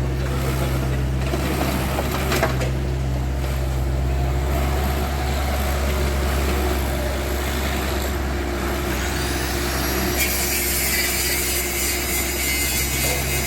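Heavy construction-machine diesel engine running steadily with a low drone, with a single click about two seconds in. About ten seconds in a high hiss joins it, preceded by a faint rising whine.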